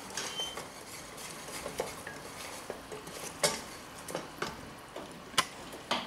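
A wooden spatula stirring and scraping caramel sauce in a small stainless steel saucepan, with irregular knocks of the spatula against the pan; the two sharpest knocks come about three and a half and five and a half seconds in.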